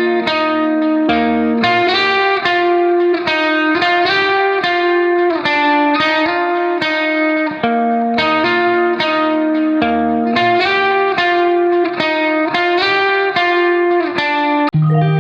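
Background music: a plucked guitar melody of steadily repeating notes.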